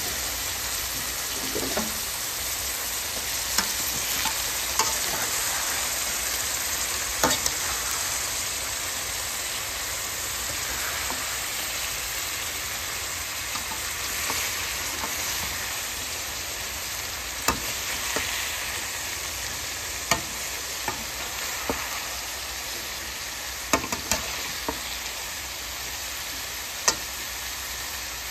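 Cauliflower and potatoes sizzling as they fry in a pan with no water added, a steady hiss, with scattered sharp clicks of a metal fork stirring against the pan.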